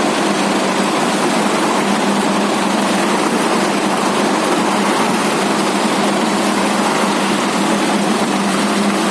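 Concrete mixer's engine running steadily, a constant drone with one steady low hum and no change in speed.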